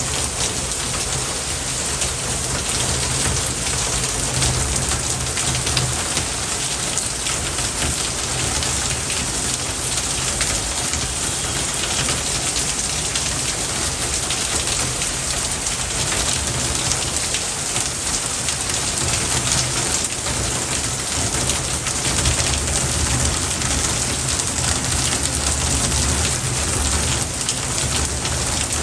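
Steady, even hiss like heavy rain falling, unchanging throughout, with a low rumble underneath and no music.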